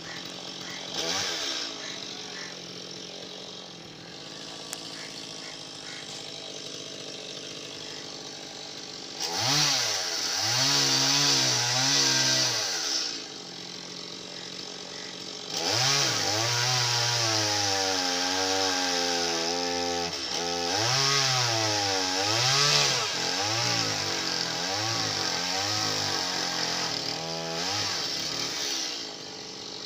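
Two-stroke chainsaw cutting into a palm trunk. It idles at first, then runs at full throttle for a few seconds, drops back to idle briefly, and then cuts for a long stretch, its engine pitch dipping and rising as it bogs under load. It falls back to idle near the end.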